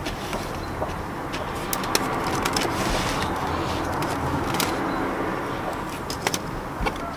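Eggs being gathered by hand from the straw of a wooden nest box: a steady rustling with a few sharp clicks of eggs and wood, and hens' low calls.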